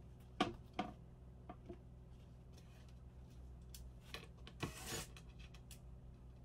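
Plywood panels knocked and set down on a wooden workbench: two sharp knocks within the first second, a few lighter taps, then another knock and a brief scrape about four and a half seconds in.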